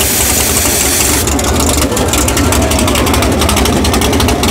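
Drag car's race engine idling loudly while its nitrous system purges with a high, steady hiss that cuts off about a second in, leaving the rapid pulsing of the idling engine.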